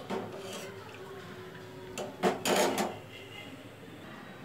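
Metal kitchenware handled: a steel spoon clinking and scraping against a steel saucepan of milk. A sharp click comes about two seconds in, followed by a short, louder scrape.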